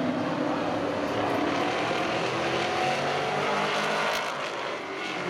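Street stock race car engines running steadily at low speed as the field circles under caution.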